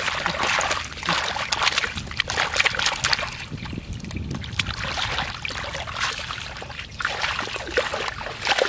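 Hands splashing and churning in shallow muddy water in irregular bursts, groping for fish, with a foot sloshing through the water near the end.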